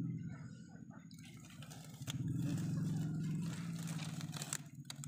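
A low, fluttering drone that fades after the first second and swells again from about two seconds in, under light rustling and scraping of dry leaves and soil as hands work a fishing line at an eel burrow. A few sharp clicks come near the end.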